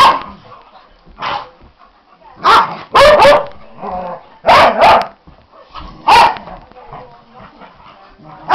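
Norwegian Elkhounds barking in rough play: about eight sharp barks, some in quick pairs.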